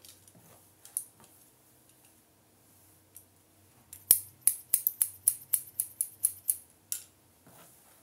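Hairdressing scissors snipping through a combed-out section of hair: about a dozen quick snips at roughly four a second, starting about halfway through and stopping near the end. Before them come a few faint clicks from the comb and handling.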